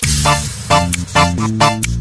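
DJ remix dance music with a steady beat, about two strikes a second, over a heavy bass line.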